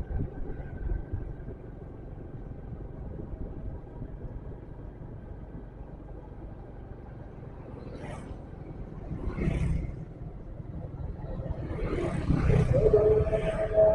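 Motorcycle ride on a town road: a steady rumble of engine and wind, with two brief swells of passing traffic about 8 and 9.5 seconds in. It grows louder near the end, and a held, wavering tone starts about 13 seconds in.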